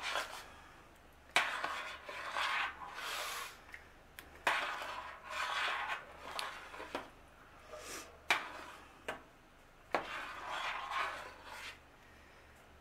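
Metal spoon stirring thick potato soup in a stainless steel pot, working in freshly added heavy cream. It scrapes along the bottom and sides in several spells, each starting with a sharp clink of spoon on pot. The stirring stops shortly before the end.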